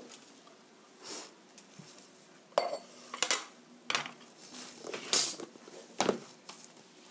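Stainless steel pan and wooden spatula knocking and clinking as the pan is handled and set down on a table: about six separate knocks spread over several seconds.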